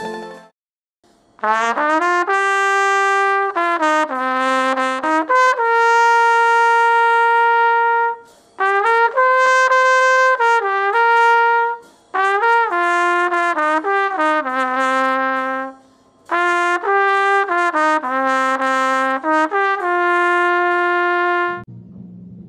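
Solo trumpet playing a slow melody in four phrases, with short breath pauses between them and several long held notes. Near the end, a low drum roll played with soft mallets begins.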